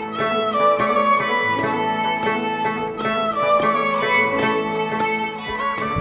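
Instrumental music with a melody on a bowed string instrument, its notes held and gliding, over plucked accompaniment.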